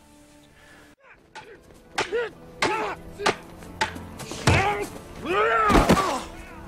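Wooden practice swords striking in a sparring bout, with sharp knocks and several loud shouts and grunts from the fighters; the longest, loudest cry comes about five to six seconds in.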